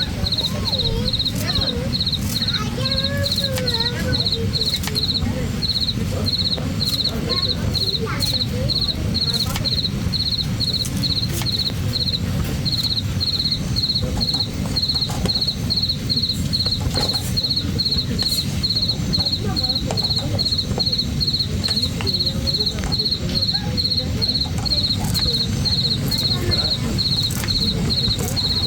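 An insect chirping in a steady rhythm, about four high pulses a second, over a steady low rumble.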